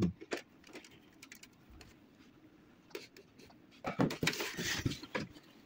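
Scattered light clicks and ticks of a screwdriver and plastic printer casing as the last screw is fitted. About four seconds in comes a second or so of louder scraping and rattling as the screw is driven in.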